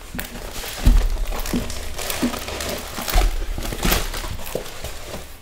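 Rolled diamond-painting canvas and its clear plastic protective film crinkling and crackling as they are unrolled and pressed flat by hand. There are irregular sharp crackles, with louder handling noises about one and three seconds in.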